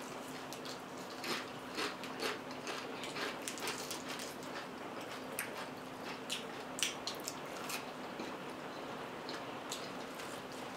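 Close-up eating sounds: irregular crisp crunches and mouth clicks of chewing fried chicken and tortilla chips.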